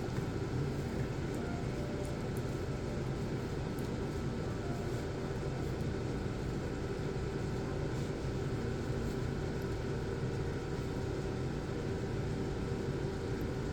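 Steady low rumble and hum of background machinery or ventilation, with a few faint clicks.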